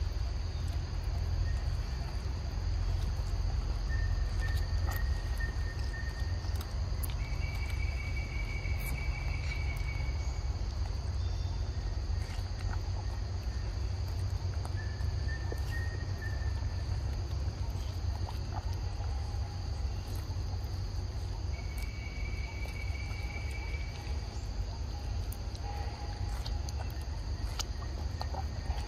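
Steady high-pitched drone of insects, with a few held whistled bird notes coming and going and a low rumble underneath; faint scattered clicks.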